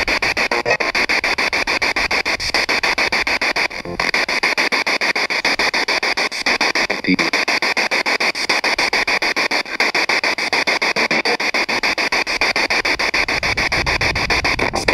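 Handheld spirit box sweeping through radio stations: continuous hissing static, rapidly chopped into short pieces, with no clear voice in it.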